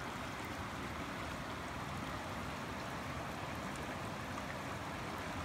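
A creek running over rocks: a steady, even rush of flowing water.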